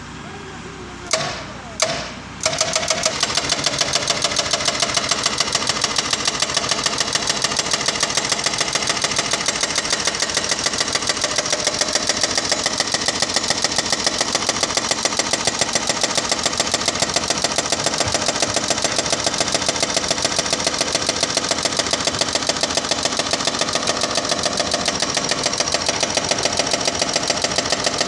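Excavator-mounted hydraulic breaker hammering a concrete pile: two single knocks, then a long run of rapid, even blows starting about two seconds in, over the excavator's running engine, stopping just at the end.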